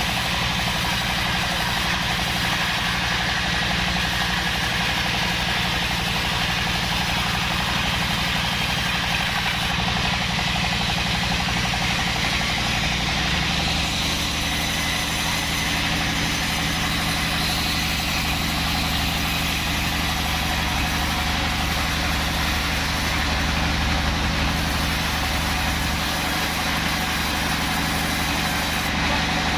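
Sawmill band saw running steadily while sawing acacia wood into boards: a low machine hum under a steady hiss, the hum shifting in pitch about halfway through.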